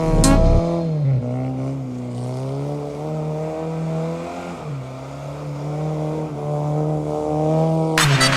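Car engine revving, its pitch rising and falling unevenly over several seconds. Electronic music cuts off about half a second in and starts again just before the end.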